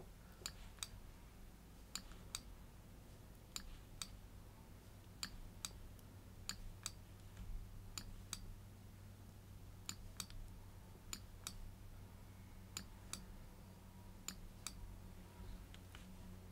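Faint computer-mouse button clicks, mostly in pairs a fraction of a second apart, repeating every second or so as the button is pressed and released for click-and-drag strokes. A faint steady low hum lies underneath.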